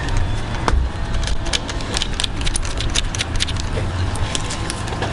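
Sharp metallic clicks and clinks at irregular intervals from tools and parts being handled while a shock absorber and coilover spring are assembled, over a steady low rumble.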